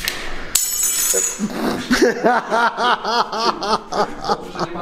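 A short metallic clink about half a second in. From about two seconds in, a person laughs in a quick run of repeated ha-ha bursts.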